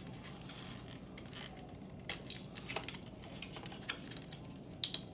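Small clicks and rustles of hands working a servo lead loose from the receiver in an RC truck's plastic receiver box, with one sharper click near the end.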